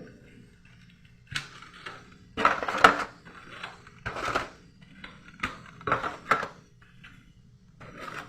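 Containers and food items being handled and set down while a refrigerator is organised: a string of about eight irregular clatters and knocks, the loudest about three seconds in.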